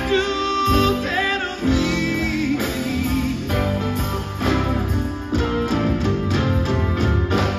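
Live rock band playing: electric guitar lines over bass, drums and keyboard, with some singing.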